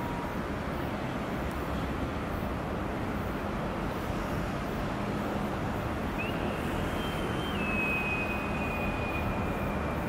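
Steady shipyard background noise of distant machinery and air, with a faint low hum. A thin high whine comes in about six seconds in and drops slightly in pitch partway through.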